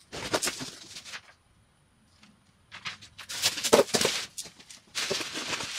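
A cardboard shipping box being opened by hand: short bursts of tearing and rustling packaging, with a pause of about a second and a half in the middle.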